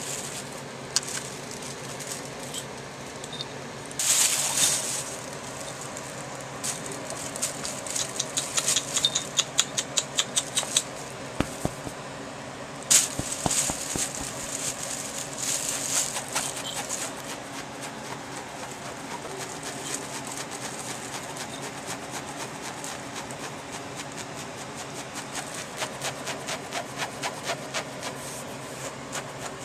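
Kittens scuffling and playing on a bed: plastic bags crinkle and rustle in bursts, and a small bell on one kitten's collar jingles with quick clicking runs as they wrestle.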